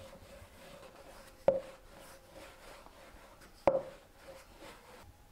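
Wooden rolling pin rolling dough thin on a floured wooden board, a soft rubbing, with two sharp wooden knocks about two seconds apart as the pin strikes the board.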